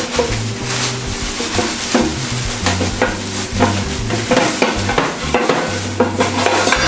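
Plastic bags crinkling and rustling as they are handled and something is pulled out of them, with many small crackles.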